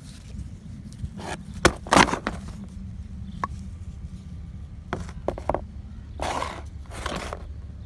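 Plastic parts of a DD15 crankcase breather housing being handled, clicking and knocking against each other and the cardboard. The loudest knock comes about two seconds in, a few lighter clicks follow, and two short rustling scrapes come near the end, all over a steady low rumble.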